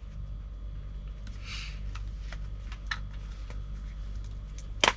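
Small cardboard box of an iPhone power adapter handled and picked at while he tries to open it: a brief scrape about a second and a half in, a few faint ticks, and a sharper click near the end. A steady low hum sits underneath.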